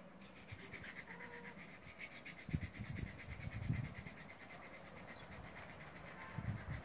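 Faint raspy, pulsing growl from a cat during mating, lasting a few seconds in the middle, with short high bird chirps and a few soft low thumps.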